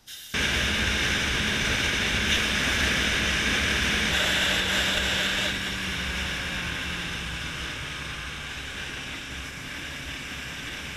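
Wind rushing over a helmet-mounted camera while riding a 2014 Honda CBR650F, with the bike's inline-four engine running steadily underneath. The rush starts abruptly and eases after about five seconds as the engine note drops a little.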